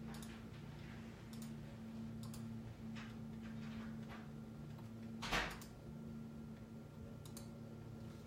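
Faint scattered clicks and light handling noise over a steady low hum, with one brief louder bump about five seconds in, typical of someone working a device's controls.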